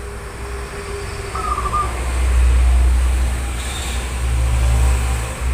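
A low, uneven rumble that swells about two seconds in, with a brief faint bird chirp about one and a half seconds in.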